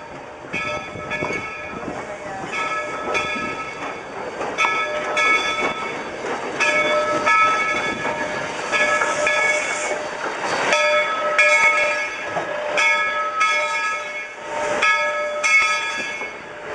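Steam locomotive No. 97, a 2-8-0 Consolidation, rolling slowly past with its bell ringing in pairs of strokes, the pairs repeating every second or two. Under the bell, the wheels of the locomotive and its coaches rumble and click over the rail joints.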